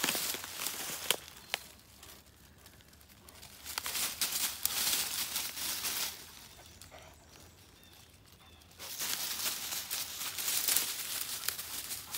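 Dogs scrambling through dry fallen leaves, the leaf litter rustling and crunching in three bursts with quieter pauses between, and two sharp clicks about a second in.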